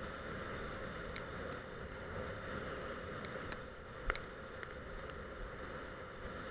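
Steady rush of wind and water as a kiteboard skims over choppy sea, with a few sharp ticks, the loudest about four seconds in.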